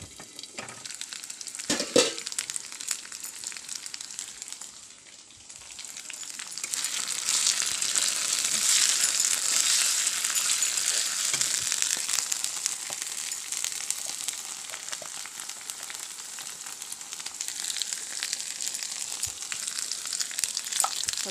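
Prawns frying in hot oil in a steel kadai, sizzling steadily and growing much louder about six seconds in. A single metal clank about two seconds in.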